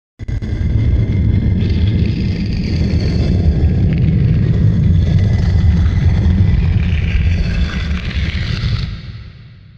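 Heavy stone block dragged and sliding over stone: a long, deep grinding rumble with a scraping layer above it, fading out near the end. It is a tomb-door opening sound effect.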